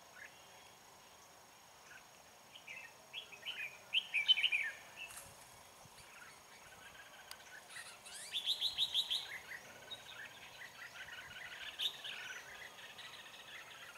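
Red-whiskered bulbul song: a few short warbled phrases about three seconds in, then a longer run of rapid, repeated phrases from about eight seconds in.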